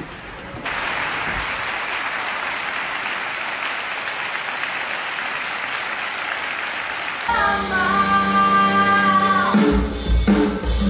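Concert audience applauding. About seven seconds in, live band music starts with held notes, and drums come in near the end.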